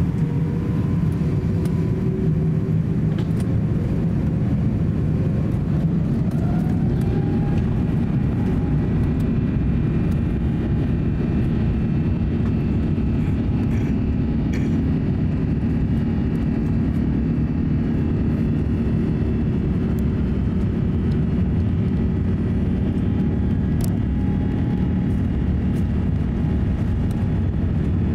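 Airbus A350-900's Rolls-Royce Trent XWB turbofan engines heard from inside the cabin beside the wing, a rising whine about six seconds in as they spool up to takeoff thrust, then a steady loud engine noise as the jet rolls down the runway.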